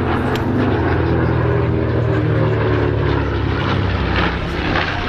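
A North American B-25 Mitchell's two Wright R-2600 radial engines droning steadily on a low pass, the pitch sagging slightly as it goes by.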